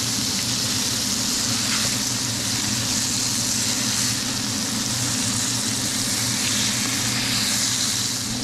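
Breaded flounder fillets frying in butter and olive oil in a nonstick pan: a steady sizzling hiss, with a steady low hum underneath.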